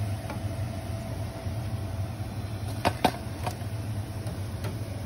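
Aloo bondas sizzling in hot oil over a steady low mechanical hum, with a few sharp metal clinks about three seconds in from the steel slotted spoon and steel vessels.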